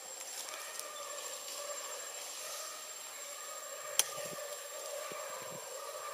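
Steady outdoor background hum with one sharp click about four seconds in.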